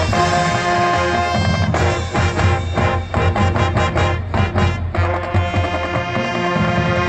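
Marching band playing live: brass chords over drums, with a run of short, punched staccato hits around the middle, then the brass holding a long sustained chord near the end.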